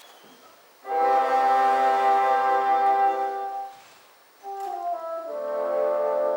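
Bassoon ensemble playing slow, sustained chords. A brief pause comes first, then a chord held for about three seconds and a short break, then a falling step into another held chord.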